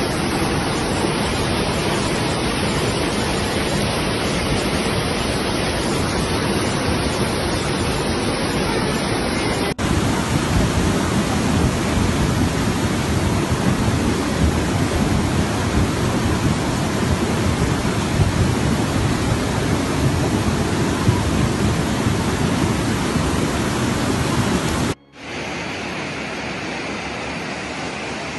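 Steady, loud rush of flash-flood water, a dense noise with no pitch. It cuts abruptly to another stretch about ten seconds in, and again near the end to a quieter, hissier rush.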